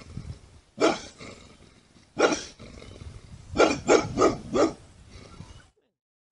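Bulldog barking: two single barks about a second apart, then a quick run of four barks.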